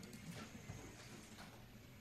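Near silence: faint room tone with three faint short clicks.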